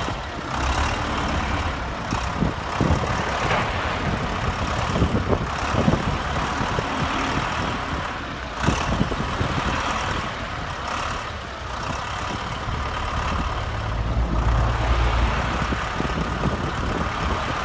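Road traffic: cars passing close by on a slushy road over a steady running engine, with a few short knocks and a louder low rumble as a vehicle passes near the end.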